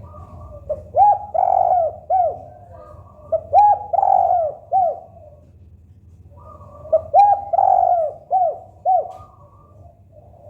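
Spotted dove cooing: three loud phrases, each a run of arching coo notes, with softer cooing from another dove running underneath.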